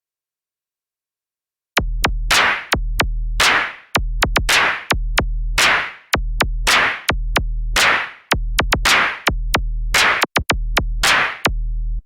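Electronic drum-machine beat that starts about two seconds in: deep held bass notes under sharp clicky hits and short noisy swishes in a repeating pattern.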